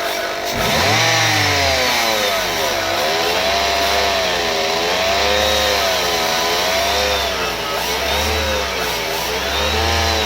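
Nissan Tiida engine revved up and down in a run of repeated blips, with a whine that rises and falls in pitch with the revs. The noise comes from the alternator, which the mechanic puts down to a worn bearing or an off-centre rotor inside it; it gets louder the harder the engine is revved.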